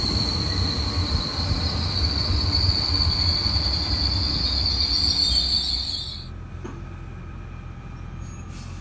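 SNCF Régiolis multiple unit running past on the rails with a low rumble and a steady high-pitched squeal from its wheels. Both fade sharply about six seconds in.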